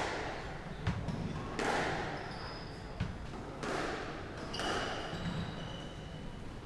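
Squash rally: the ball is struck by rackets and hits the walls about once a second, each hit ringing around the court. Between hits, shoes squeak briefly on the wooden floor.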